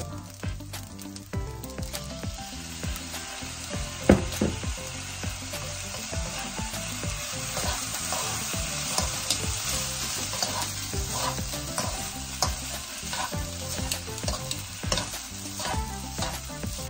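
Fried rice sizzling in a hot nonstick wok while it is stir-fried with two metal utensils, which click and scrape against the pan. There is one sharper knock about four seconds in.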